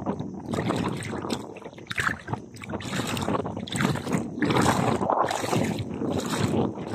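Shallow seawater sloshing and splashing in repeated surges about once a second, as someone wades through it.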